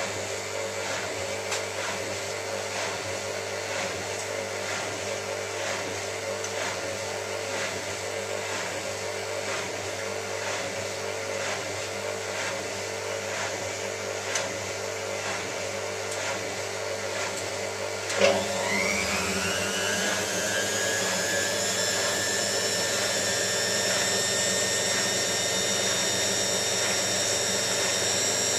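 Hotpoint 9534A washing machine running with a steady hum and faint regular ticks. About two-thirds of the way through, a click is followed by the motor speeding up into a spin: a whine that climbs quickly in pitch, then holds as a steady high whine, louder than before.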